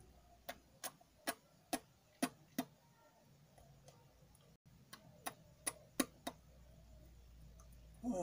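A run of sharp clicks, about two or three a second: six in a row, then a pause of a few seconds, then four more.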